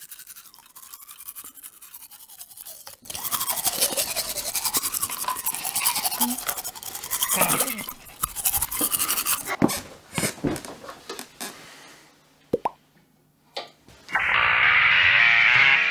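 Electric toothbrush buzzing while brushing teeth: faint at first, loud from about three seconds in, then stopping and starting in short bursts before it falls quiet. Music starts near the end.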